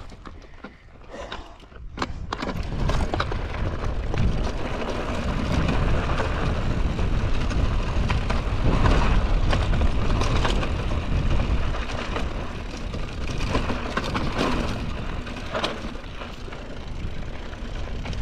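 Mountain bike riding over a rough, rocky dirt trail, with a heavy low rumble and a constant clatter of tyres and rattling parts. It starts about two seconds in.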